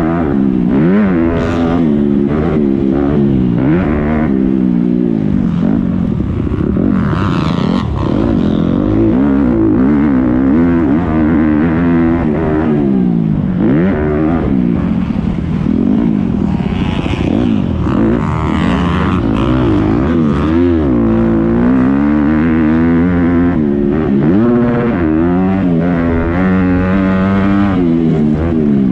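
Motocross bike's engine, recorded on board, revving continuously under hard riding: its pitch climbs under throttle and drops off again every second or two.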